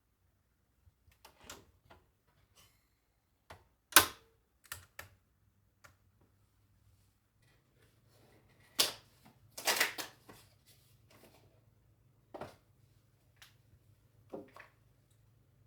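Irregular clicks and knocks, some light and some sharper, the sharpest about four seconds in and a cluster of them around nine to ten seconds in.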